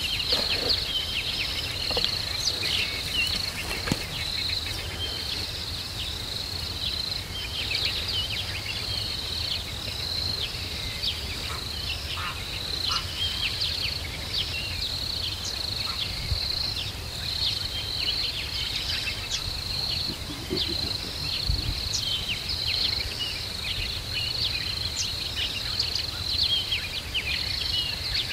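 Insects chirping in a steady, evenly pulsing high drone, with many short high bird chirps scattered through it over a low rumble.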